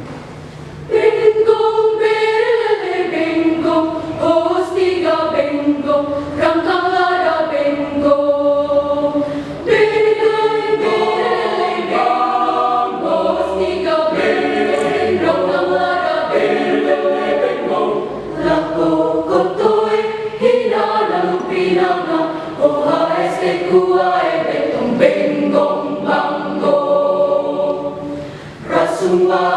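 High school choir singing, the voices coming in together about a second in and holding sustained notes, with a brief drop just before the end.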